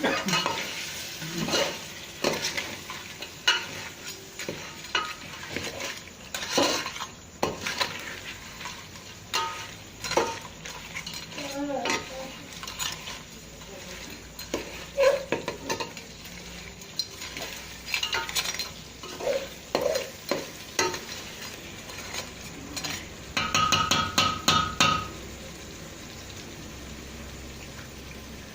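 A metal ladle stirring and scraping in a pot of crab curry as it cooks, with irregular knocks against the pot. Near the end comes a quick run of ringing taps on the metal.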